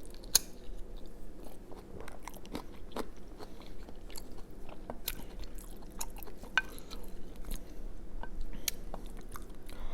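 A person chewing a mouthful of tater tot casserole close to the microphone: irregular wet mouth clicks and soft crunches, several a second.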